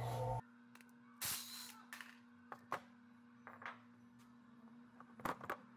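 A steady hum cuts off suddenly just after the start. Then come faint scattered clicks and taps of tools and metal parts being handled, with one short hiss about a second in.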